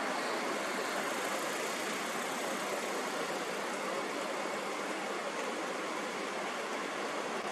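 Steady, even rushing noise with no rhythm or breaks, its low bass cut away.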